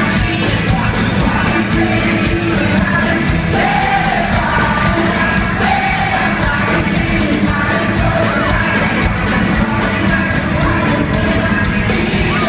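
Live rock band playing at concert volume, with a voice singing over it and the crowd yelling and singing along.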